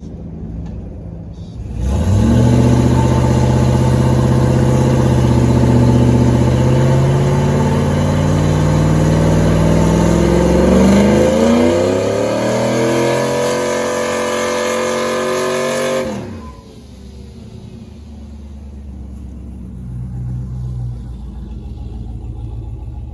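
Chevrolet Trailblazer SS's 6.0-litre V8 doing a burnout on dirt. It idles, jumps to loud high revs about two seconds in and holds them, climbs higher around eleven seconds, then drops back to idle about sixteen seconds in.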